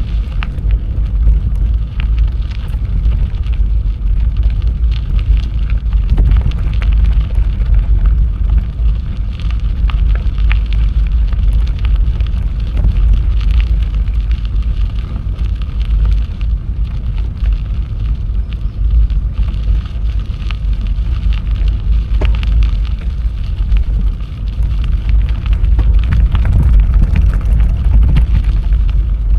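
Bicycle ride recorded on the rider's camera: heavy wind rumble on the microphone, with a constant crackle and rattle from the tyres and bike rolling over the trail.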